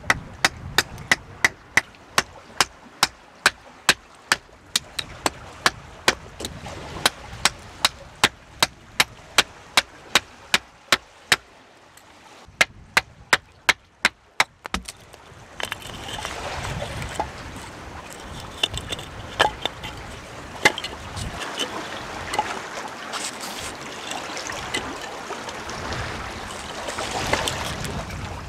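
Small hatchet chopping into a wooden stick in quick, even strokes, about two or three a second. About halfway through the strokes stop and give way to a steadier scraping as the blade carves the wood, with a few scattered knocks.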